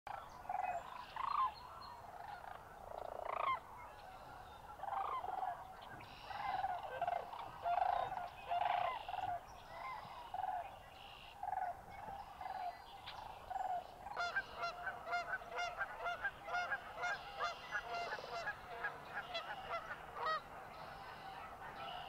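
Sandhill cranes calling: repeated loud bugling calls, coming thicker and faster from a little past halfway in.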